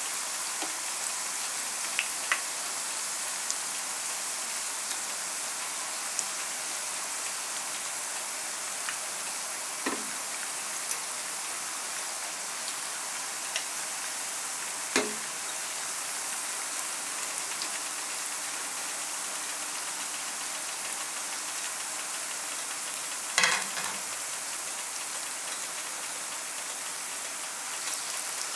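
Plantain slices frying in hot oil in a nonstick frying pan: a steady sizzle. A slotted spatula knocks against the pan a few times, with the loudest knock about three-quarters of the way through.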